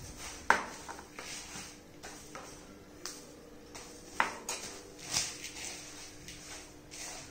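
A plastic spoon stirs a dry puffed-rice bhel mixture in a plastic mixing bowl, making rustling and scraping sounds. Several sharp clacks of utensils on the bowl break through, the loudest about half a second in.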